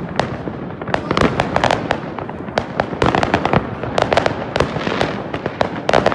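Many fireworks going off at once: a dense, irregular barrage of sharp bangs and crackling pops, with a continuous noisy din between them.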